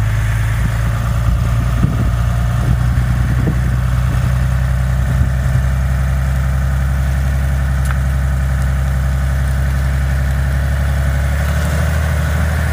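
Ram 2500 pickup truck's engine idling steadily, with a few short knocks about two to three seconds in.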